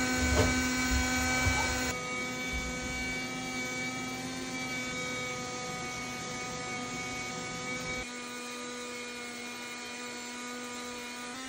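Battery-powered octopus bubble machine's small fan motor running with a steady electric whine, with a few low knocks in the first two seconds.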